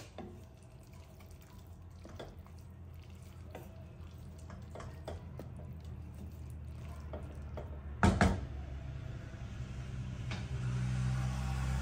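Pisto vegetable stew simmering wetly in a stainless steel pot, with scattered small pops and squelches as a wooden spoon stirs through the vegetables. A loud knock comes about eight seconds in, and a low steady hum comes in near the end.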